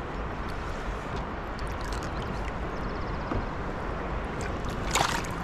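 Sea water sloshing and trickling beside a kayak as a gloved hand holds a red wrasse in the water for release, with a short splash about five seconds in as the fish kicks away.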